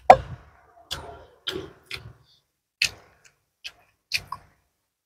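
Close-miked mouth sounds of eating by hand: a run of short, wet smacks and clicks of chewing and lip-smacking, about seven spread unevenly over five seconds, the first the loudest.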